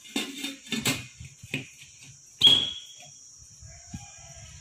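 Stainless steel idli cooker lid being set on the pot: a few light metal knocks, then one loud clank about two and a half seconds in that rings briefly as the lid seats.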